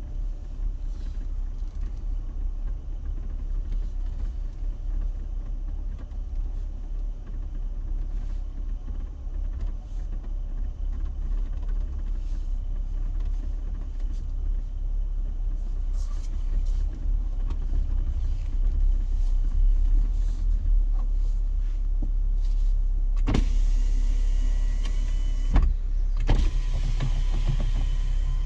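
Jeep driving off-road: a steady low engine-and-tyre rumble that grows louder and wider in the last few seconds, with several sharp knocks from bumps over rough ground near the end.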